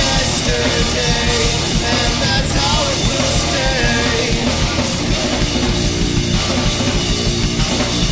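Post-hardcore rock song played loud by a full band, with distorted guitars and a busy drum kit. A wavering melodic line stands out in the first few seconds.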